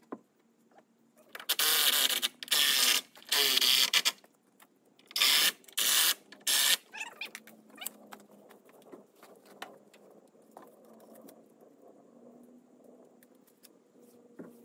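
Cordless power driver run in six short bursts in the first half, driving fasteners into a timber post-and-beam frame.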